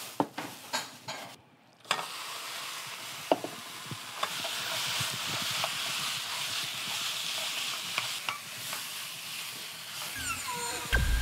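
Pieces of pork sizzling as they fry in a wok, stirred with a wooden spatula that now and then ticks against the pan; the steady sizzle sets in about two seconds in, after a few clicks. Near the end a short falling tone sounds.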